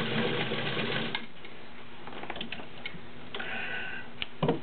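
New Home model 552 sewing machine running steadily on a stretch zigzag stitch, the feed working back and forth, then stopping about a second in. Near the end, a couple of sharp snips of scissors cutting the thread.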